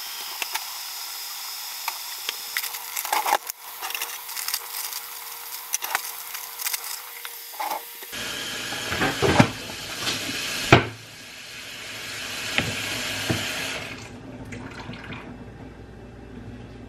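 Kitchen faucet running steadily into a sink, with scattered knocks and clatter, the loudest knock about two-thirds of the way in.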